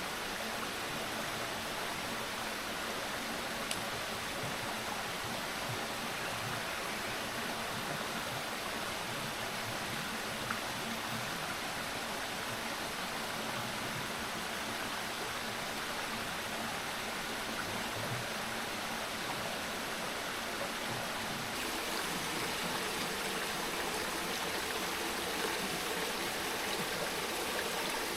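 Steady rushing of a mountain stream or river flowing over rocks.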